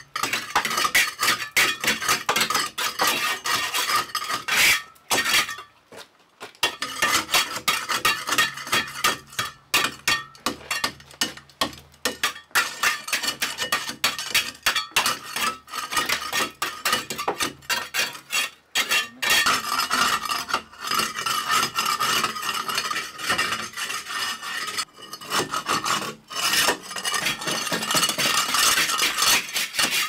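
Hand trowels scraping and tapping against a brick wall, working mortar into the joints, in quick irregular strokes with two short pauses.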